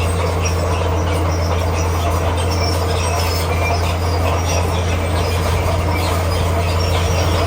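Komatsu D41P crawler bulldozer running steadily, its diesel engine droning low while the steel tracks give short, high squeaks as it works.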